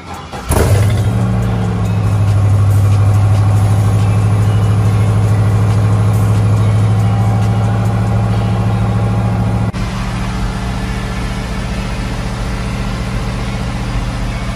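Cold start of a Chevrolet S10 pickup's swapped-in LS V8: the engine catches about half a second in and settles at once into a loud, steady idle heard at the exhaust. Near the end the idle runs on a little quieter.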